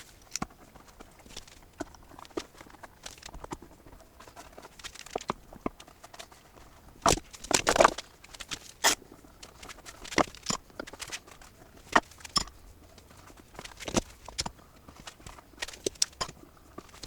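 Irregular clicks and knocks of woodworking clamps being set and tightened on a glued-up board, with a louder cluster of knocks about halfway through.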